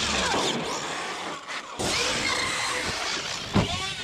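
Brushless electric RC truck motor whining, its pitch rising and falling as the throttle is worked, with one sharp thump near the end.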